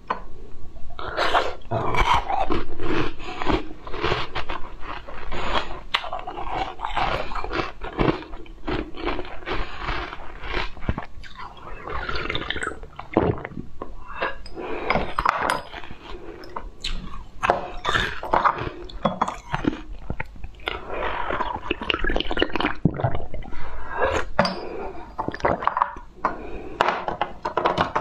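Close-miked chewing and mouth sounds of someone eating candy: a dense run of clicks and smacks with a few short pauses.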